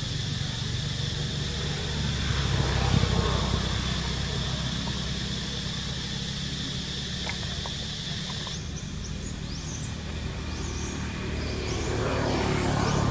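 A motor engine running steadily with a low hum. A high steady drone cuts off about two-thirds of the way through, and a few short high chirps follow.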